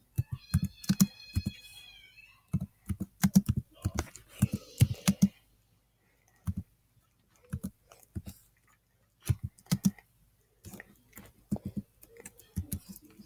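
Computer keyboard typing, keystrokes clicking in short bursts with pauses between them.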